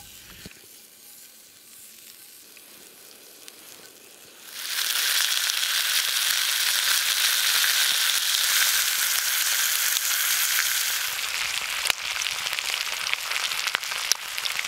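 Thick-cut bacon sizzling in a cast iron skillet: a steady loud hiss starts suddenly about four seconds in, with crackling pops coming in near the end.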